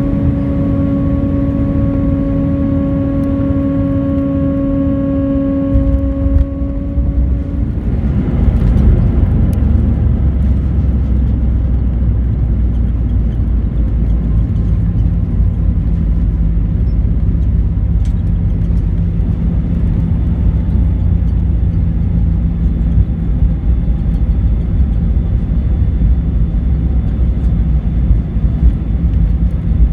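Airbus A319 cabin noise on landing. A steady hum with a higher tone over it stops about seven seconds in. A louder low rumble then takes over, with the aircraft rolling on the runway, and it settles into a steady lower drone.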